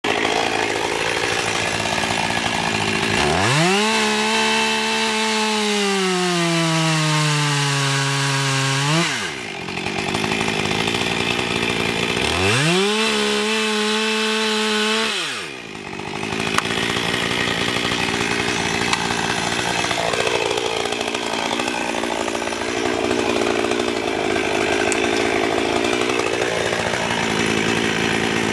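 Two-stroke petrol chainsaw cutting into the trunk of a small conifer near its base for a felling cut. About three seconds in the engine revs up hard and its pitch slowly sags as the chain works through the wood, until it drops back around nine seconds. It revs and cuts again from about twelve to fifteen seconds, and keeps running noisily for the rest of the time.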